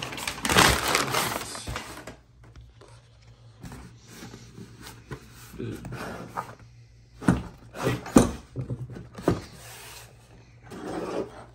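Packing paper rustling for about two seconds, then a cardboard box being handled on a table, with a few knocks and scrapes a second or so apart.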